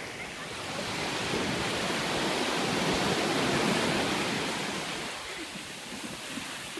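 Sea surf: a wave breaks against a beached outrigger boat and washes up the sand, the rush of water swelling about a second in, loudest around the middle, then fading.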